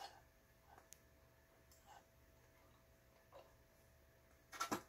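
A few faint clicks and handling noises at a home sewing machine as hands work the thread and fabric, then a short, louder clatter near the end.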